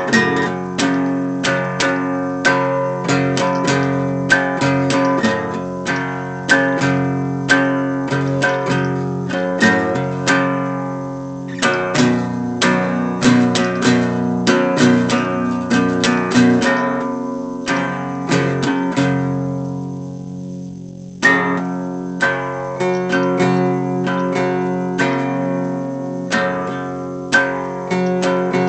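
Guitar played solo: picked notes and chords ringing out one after another in a steady rhythm. About two-thirds through, the playing lets a chord ring and die away, then starts again with a strong struck chord.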